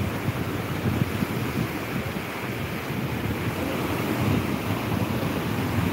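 Ocean surf breaking and washing on a beach, a steady rush, with wind buffeting the phone's microphone in low rumbles.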